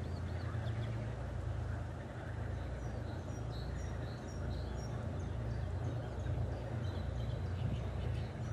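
Wind buffeting the microphone in a fluctuating low rumble, with small birds chirping over it in short repeated calls.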